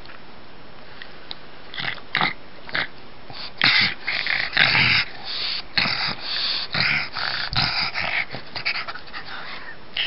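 Pug playing on its back, making a string of short, breathy huffs and snorts as a hand plays with its face. They start about two seconds in and come thicker and louder from about four seconds on.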